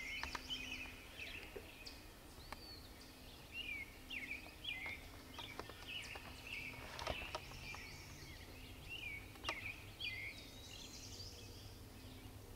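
Wild songbirds chirping and singing: many short, high notes, with a longer high phrase near the end.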